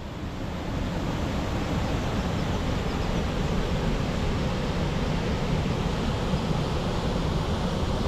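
Waterfall: a steady rush of falling water that swells louder over the first couple of seconds, then holds.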